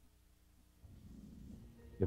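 Near silence, with a faint low rumble coming in about a second in.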